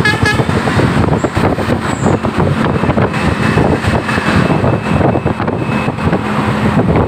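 The last notes of a Basuri 'telolet' musical bus horn in the first half second, then the loud, continuous noise of a passing bus and road traffic.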